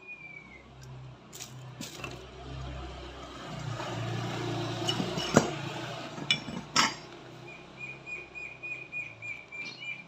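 Metal clinks and knocks of tools and parts while an ADV 160 scooter's CVT is taken apart, over a low whirr that swells in the middle; the sharpest clink comes about five seconds in. A bird chirps once at the start and in a quick run near the end.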